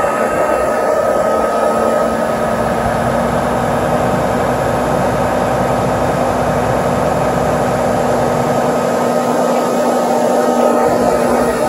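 Massey Ferguson 7716 tractor running steadily while driving a Kuhn Knight vertical manure spreader, a constant machine noise with a steady whine in it.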